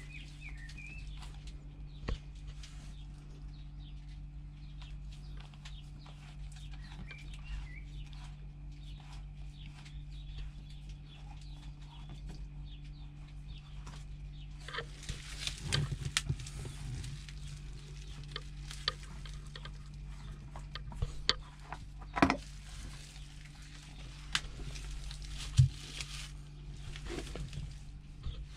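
A spin-on oil filter being unscrewed by hand from a Bukh DV10 marine diesel: scattered small clicks and scrapes, a denser scraping stretch about halfway through as it comes loose, and a few sharp knocks later on, over a steady low hum. A bird chirps faintly a couple of times in the first seconds.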